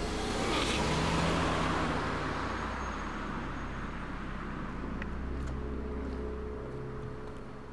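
A car driving past: engine and tyre noise swell to their loudest about a second in, then slowly fade away.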